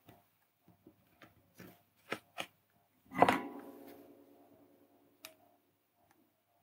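Faint clicks and taps of a small circuit board and its plastic LEDs being handled. About three seconds in comes a louder clank that rings briefly and fades over about a second as the soldering iron is picked up, then one more light click.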